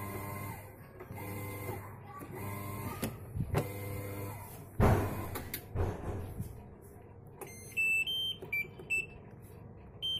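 LG WF-N6861DN top-loading washing machine's wash motor humming in short on-off pulses, about one a second and a half, as it tries to agitate; the technician puts the wash fault down to the gearbox (washing assembly). A loud knock comes about halfway through, and near the end the control panel gives a series of electronic beeps.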